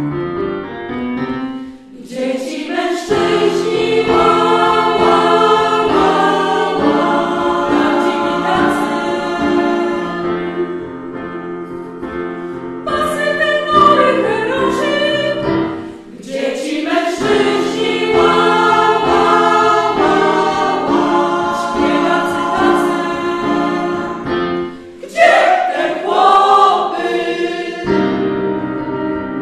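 Women's choir singing together in harmony, in sustained phrases with short breaks between them.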